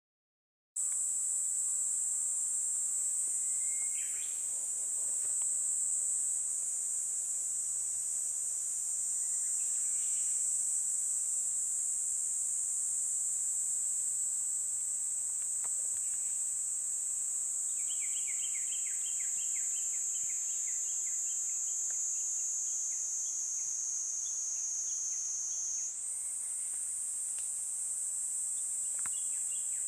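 Insects trilling in one continuous high-pitched drone, starting about a second in, slowly sinking a little in pitch and stepping back up near the end. A few faint bird chirps come through, one a quick run of notes about two-thirds of the way in.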